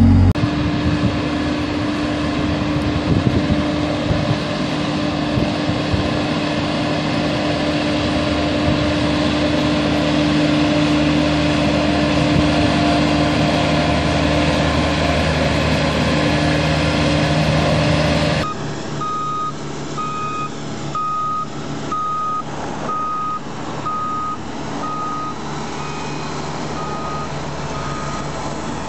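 A heavy road-construction machine's engine running steadily, loud and even. About two-thirds of the way through it gives way suddenly to quieter engine noise with a reversing alarm beeping about once a second.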